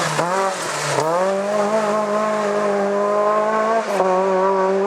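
Rally car engine at high revs under hard acceleration. The pitch climbs quickly twice near the start, then holds a steady high note, with a brief dip about four seconds in, as at a gear change.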